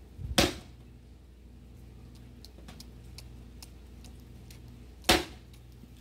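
Axe chopping into a log, two heavy strikes, one just after the start and one about five seconds later.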